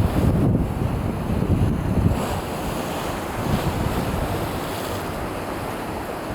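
Sea of Japan surf washing on the shore, with wind buffeting the microphone in a low rumble that is strongest over the first two seconds and then eases.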